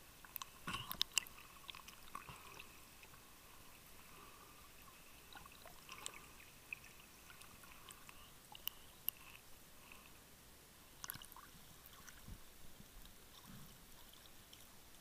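Faint, muffled underwater sound picked up by a submerged camera: scattered small clicks and crackles over a quiet hiss, with a cluster of louder clicks about a second in and another about eleven seconds in.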